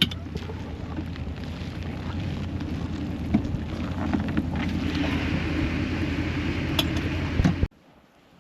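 A vehicle engine running steadily, with scattered knocks and rattles; it cuts off suddenly near the end.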